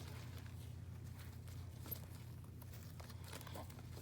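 Faint crackling and clicking of slime being handled, over a steady low hum.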